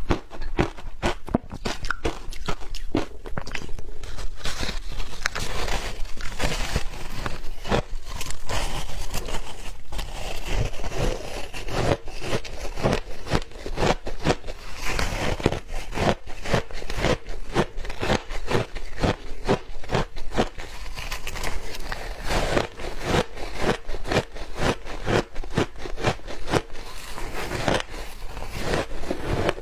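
Shaved ice being bitten and chewed: a steady run of crisp, rapid crunches and crackles.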